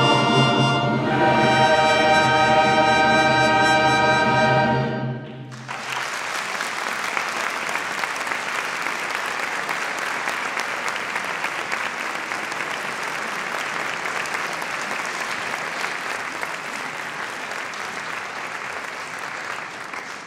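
A large choir holds the final chord of a piece, cutting off about five seconds in, and the audience breaks into applause in a reverberant church; the clapping fades near the end.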